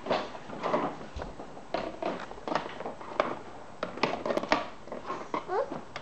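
Plastic toy kitchen being handled: a string of irregular light clicks and knocks as the toy microwave's plastic door is opened and plastic play food is moved about.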